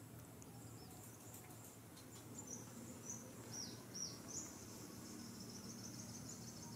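Faint background of a few short, high, falling chirps about two to four seconds in, then a steady high insect-like trill, over a low steady hum.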